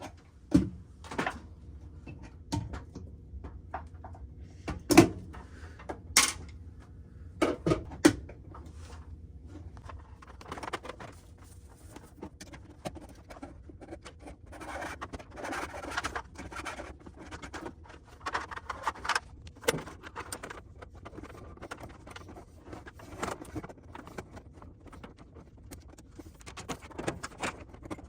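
Cable being handled and worked into an electrical box: a few sharp knocks and clicks in the first several seconds, then a longer stretch of rustling, scraping and light clicking of wire being pulled and bent.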